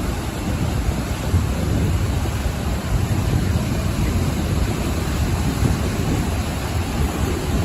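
Ocean surf washing onto the shore: a steady wash of waves with a heavy low rumble and no distinct single break.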